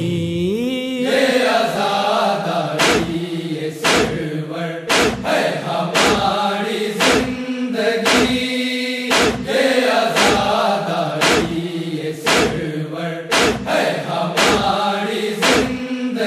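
Male voices chanting an Urdu noha lament in a slow, sustained line, joined from a few seconds in by a steady chest-beating (matam) thud about once a second that keeps the rhythm.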